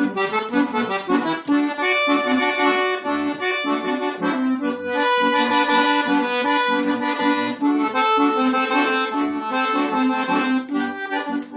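Accordion playing an instrumental passage in traditional gaúcho style: a melody over pulsing bass-and-chord accompaniment.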